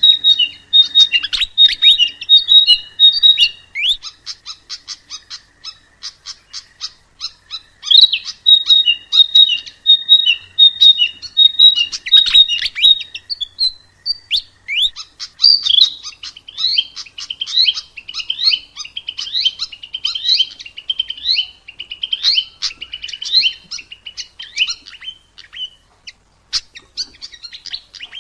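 Sikatan emas, a Ficedula flycatcher, singing a long, fast run of high chirps and trills, several notes a second. About halfway through, the notes turn into quick rising slurs, and the song breaks off briefly near the end.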